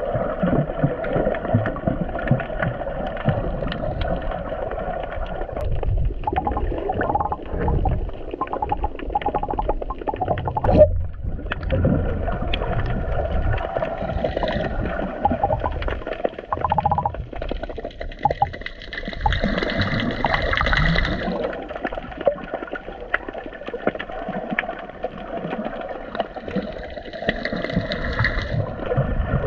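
Muffled underwater sound from a camera held below the surface while snorkeling: a steady wash of moving water and gurgling, with many small scattered clicks and ticks.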